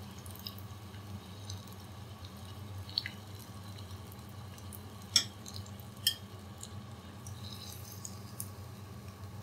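Hot oil bubbling and sizzling quietly in a pan of deep-frying chicken nuggets as the pieces are lifted out on a metal spoon. Three sharp clinks of the spoon, the loudest two about five and six seconds in.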